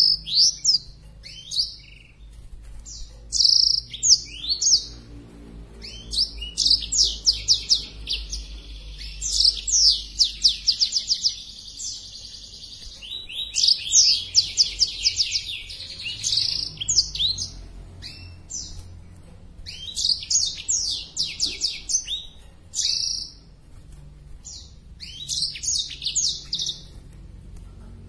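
Caged blackthroat (black-throated canary) singing hard in breeding condition: repeated phrases of rapid, high twittering trills, each lasting a few seconds, with short pauses between them.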